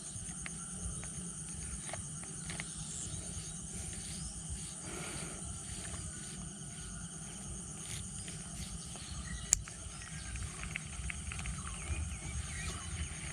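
Steady high-pitched insect drone over a low rumble, with one sharp click about nine and a half seconds in.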